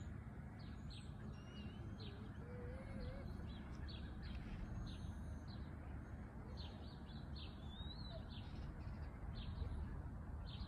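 Small birds chirping: many short high chirps, about two a second and irregular, with a few brief warbled notes, over a steady low outdoor background hum.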